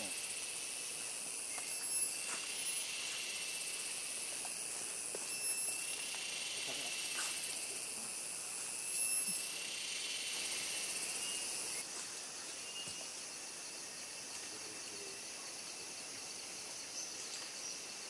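Rainforest insect chorus: a steady high-pitched buzzing drone, with a still higher buzz that cuts in and out a few times and drops away about two-thirds of the way through.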